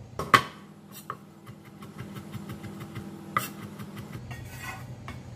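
Chef's knife chopping garlic cloves on a wooden cutting board. Two sharp knocks just after the start, then lighter, irregular taps of the blade on the board.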